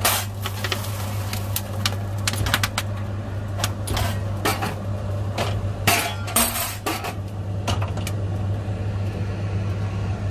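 Commercial caramel popcorn machinery running: a steady low motor hum under irregular clinks and rattles of coated popcorn tumbling against steel, louder for a moment around the middle.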